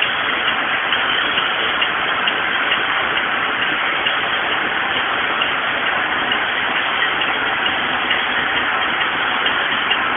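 Circular knitting machine running steadily as it knits rib-knit fabric into a tube: an even mechanical clatter with a regular light ticking.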